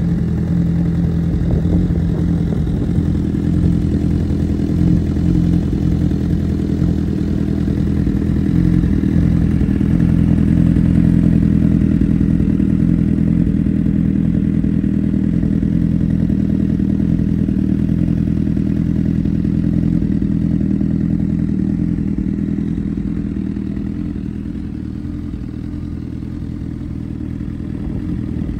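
A 2009 Honda CBR1000RR Fireblade's inline-four engine idling steadily through an aftermarket Arrow race silencer.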